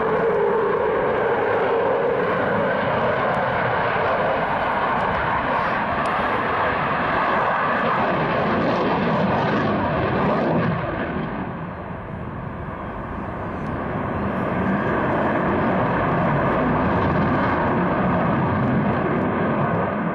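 Eurofighter Typhoon's twin EJ200 turbofan engines, a loud jet roar from the display overhead; the noise dips briefly about halfway through and then builds again.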